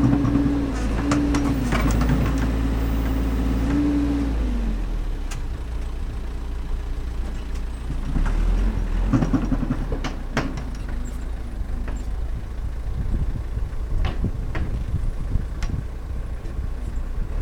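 Caterpillar backhoe loader's diesel engine running, with a steady whine over it that falls away about four and a half seconds in. Several sharp knocks and clanks follow as the backhoe bucket works the dirt pile.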